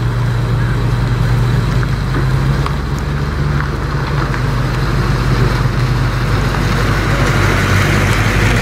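Pontiac Firebird Trans Am's 6.6-litre V8 rumbling steadily at low revs as the car rolls slowly past, a little louder near the end.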